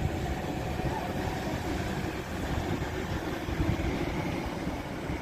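City street traffic: cars and other vehicles passing through a junction, a steady low rumble of engines and tyres.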